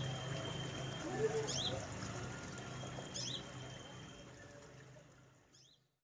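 Brown-throated sunbird calling: short, sharp, high double chirps about every second and a half, over a steady low hum. The sound fades out near the end.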